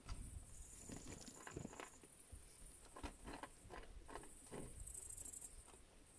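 Rabbits chewing food right by the microphone: quick, irregular crunching clicks, a few a second, with some low rustle of fur brushing the phone.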